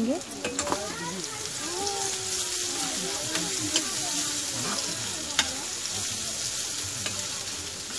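Fried cauliflower and masala sizzling in a steel kadai as a spoon stirs it, with a few sharp clicks of the spoon against the pan.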